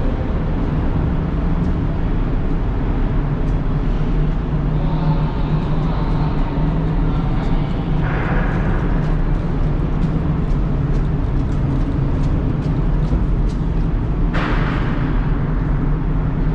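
Steady low vehicle rumble, unbroken throughout, with a few faint ticks and short swells of hiss.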